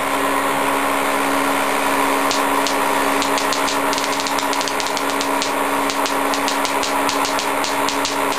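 Homemade Van de Graaff generator running with a steady motor-and-belt hum. From about two seconds in, rapid irregular sharp snaps of static sparks jumping from the dome to a hand held near it, several a second.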